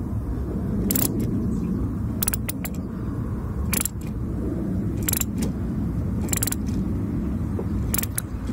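Ratcheting socket wrench tightening a wiper arm's retaining nut: short sharp clicks of the ratchet every second or so as the handle is swung, over a steady low rumble.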